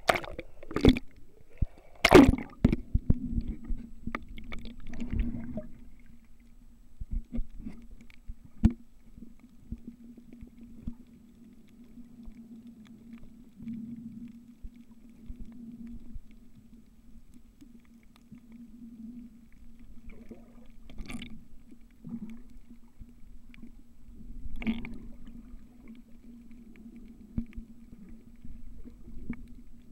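Splashing as a camera plunges under the sea surface, then the muffled sound of seawater heard through the submerged camera, with a steady low hum and a few knocks.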